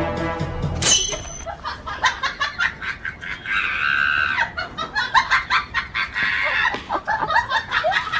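Background music stops about a second in; then a chicken squawks and clucks in a quick run of short, agitated calls, with one longer squawk near the middle.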